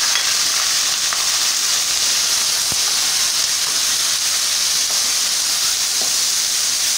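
Raw chicken strips sizzling steadily in hot oil in a steel wok, stirred with a wooden spatula that gives a few light knocks against the pan.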